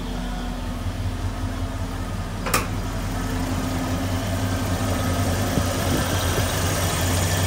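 1988 Ford F-150 pickup's engine idling steadily, with a single sharp click about two and a half seconds in.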